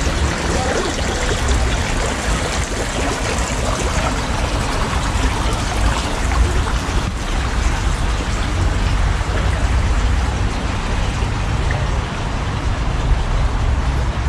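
Small stream trickling steadily, with a low rumble underneath.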